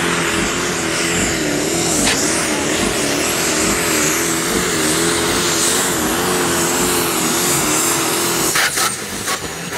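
Pro Stock pulling tractor's turbocharged diesel engine running flat out under load, a loud, steady, slightly wavering engine note over heavy rushing noise. It drops away suddenly near the end.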